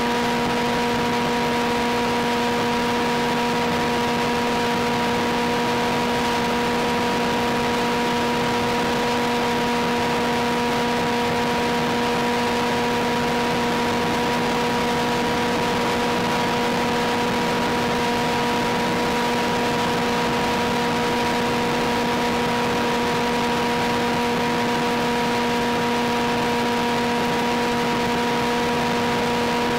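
Constant hiss with a steady hum of several evenly spaced tones that never changes pitch, as carried by the FPV plane's analog video-downlink audio.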